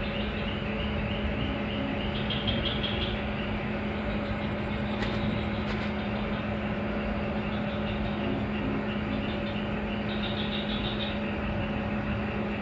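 A steady mechanical hum holding one low pitch without change, with two short spells of rapid high chirping, about two seconds in and again about ten seconds in.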